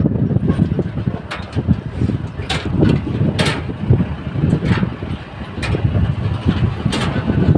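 Pickup truck loaded with bricks driving along a rough dirt road, heard from the open cargo bed: a steady low rumble of engine and road noise, with about six sharp knocks as it jolts over bumps.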